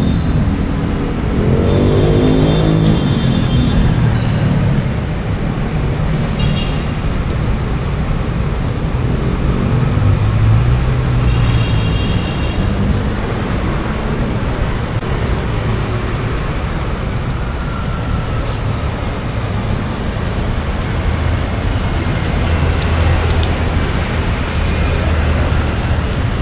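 Busy city road traffic: a steady rumble of car and bus engines running and passing close by, one engine's pitch sweeping a couple of seconds in. Two brief high-pitched tones cut through, one early on and one about halfway through.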